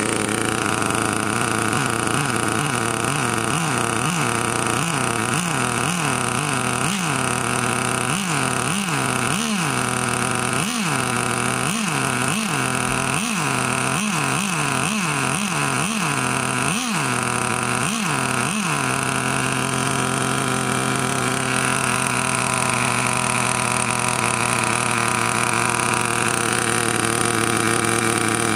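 Traxxas TRX 2.5 two-stroke nitro glow engine in an RC truck, running and being blipped many times in quick succession, its pitch rising and falling with each rev. In the last ten seconds or so it settles into a steady idle, running smoothly.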